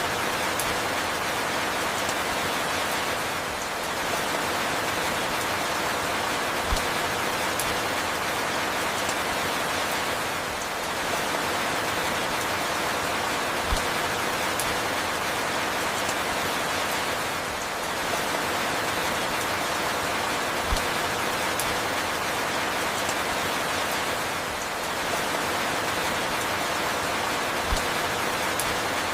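Steady rain falling with a dense hiss and patter. A short low thud and a slight dip in level recur about every seven seconds, so the rain recording repeats in a loop.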